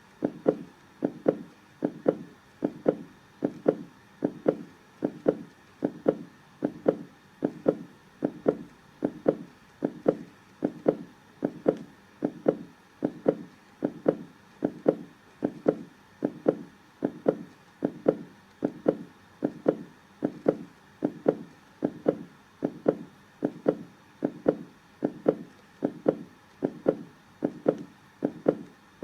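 Heartbeat in a steady rhythm, about one beat a second, each beat a dull double thump (lub-dub).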